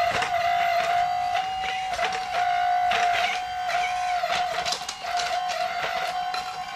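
Small electric motor on an RC construction model whining at a steady pitch that dips briefly every second or so, with scattered light clicks.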